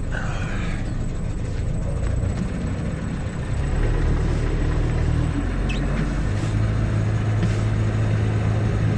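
Sailboat's inboard diesel engine running in gear as the boat pulls away from the dock, a low steady drone. It gets louder about three and a half seconds in and settles into a steadier hum about six seconds in.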